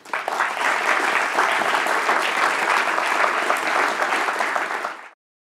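Audience applauding: many hands clapping in a dense, even patter that cuts off suddenly about five seconds in.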